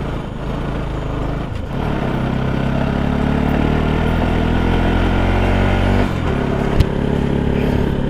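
Bajaj Pulsar NS 200's single-cylinder engine running steadily under throttle, louder from about two seconds in, then easing off about six seconds in, with a single sharp click shortly after.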